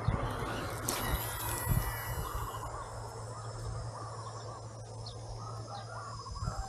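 Outdoor ambience with faint bird calls, and one sharp click with a brief high ringing about a second in.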